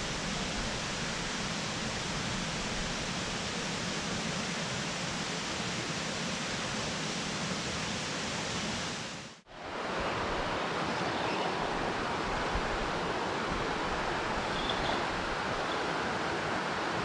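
Steady rushing of a mountain creek's water over rocks and small cascades; it cuts out for a moment about halfway through, then continues.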